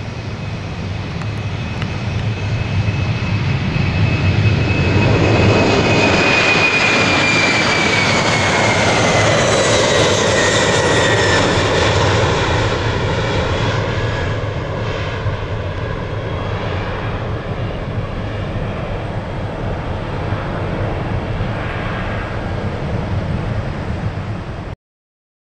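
Boeing 747-400's four Pratt & Whitney PW4056 turbofans at takeoff thrust as the jet lifts off and climbs past: a steady deep rumble that swells for several seconds, with a high whine that falls in pitch as the aircraft goes by, then slowly fades as it climbs away. The sound cuts off suddenly near the end.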